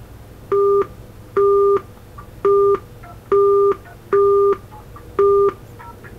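Six short identical keypad beeps, roughly one a second, as digits are tapped into a smartwatch's phone dial pad to key a new frequency into a remotely controlled ham radio station.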